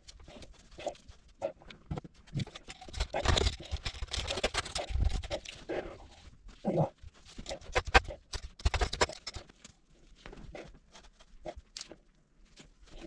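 A brush dabbing and scrubbing resin into glass-fibre cloth, with irregular wet scrubbing, rustles and handling knocks. The scrubbing is busiest a few seconds in, and a few sharp knocks come about halfway through.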